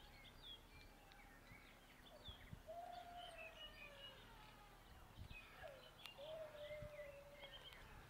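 Tui singing, faint: a scatter of short high chirps and two long whistled notes that slide slowly downward.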